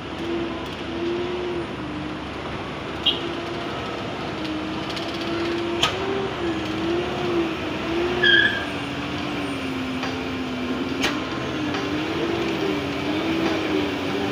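Road traffic: idling and slow-moving truck and car engines with a steady hum, a droning tone that wavers up and down in pitch, and a few brief sharp clicks.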